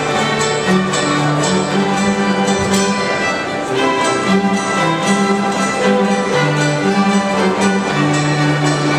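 Live Ukrainian folk music from a bandura ensemble with cello and violin: plucked banduras over held low notes that step from one pitch to the next.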